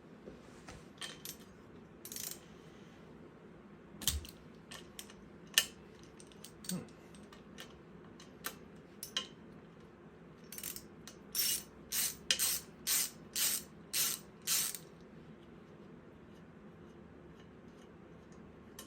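Hand tools and metal bicycle parts being handled during a bike rebuild: scattered clicks and clinks, then about eight short, louder strokes at roughly two a second a little past the middle.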